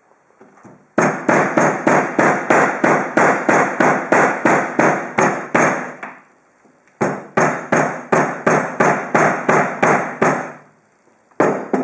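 Hammer striking an HDMI cable again and again, about four blows a second, in two fast runs with a short pause between and one last blow near the end.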